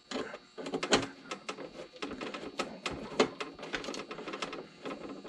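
Irregular clicking and rattling of tools and plastic parts being handled while a teleprompter is taken apart, with a few sharper knocks about a second in and again past the three-second mark.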